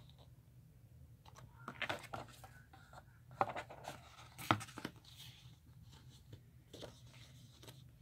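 Paper sheets being handled and set down: light rustling with a few sharp taps, the loudest about three and a half and four and a half seconds in, over a low steady hum.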